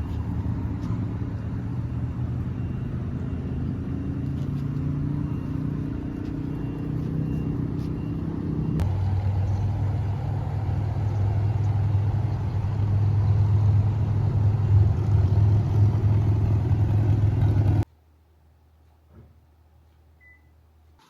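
Steady low engine hum of a motor vehicle running. The hum changes abruptly about nine seconds in and cuts off sharply near the end, leaving near silence.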